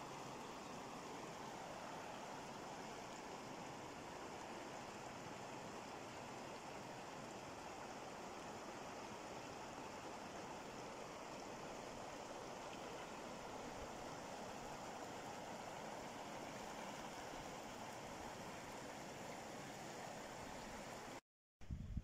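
Shallow river running fast over rocks and riffles: a steady rushing of water. It cuts off suddenly near the end, and a brief low rumble follows.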